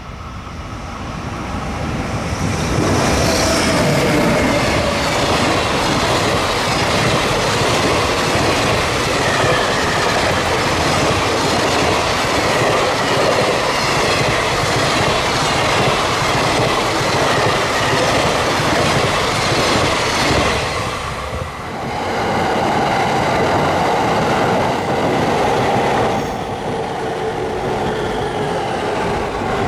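Freight train running at speed on the rails: a steady rush and clatter of wheels that builds up over the first few seconds, with a short dip about two-thirds of the way through.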